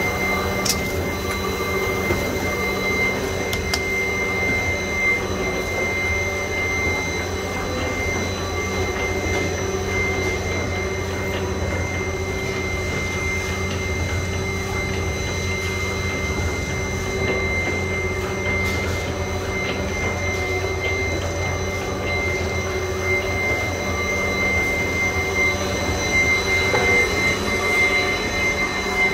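Label printing machine running steadily, its rollers turning: a continuous mechanical hum with a steady high-pitched whine over it.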